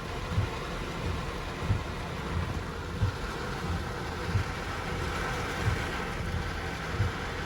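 Steady hiss of heavy rain mixed with traffic noise, with a dull low thump repeating about every second and a quarter.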